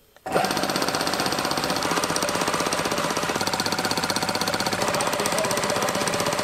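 High-pressure piston air compressor switching on and running with a fast, even pumping beat. It fails to build full pressure: it is leaking at a fitting, and the check valves are suspected.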